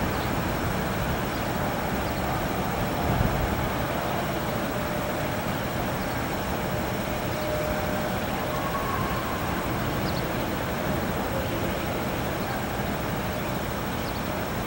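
Wind buffeting a camcorder's microphone: a steady, rough rumble, with a faint brief hum about halfway through.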